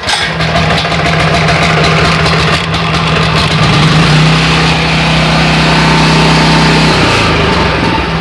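Mitsubishi 8 hp single-cylinder four-stroke petrol engine of a hammer-knife mower catching on the first recoil pull, with a freshly cleaned carburettor and the choke on, then running loud and steady. Its note deepens for about three seconds midway, then settles.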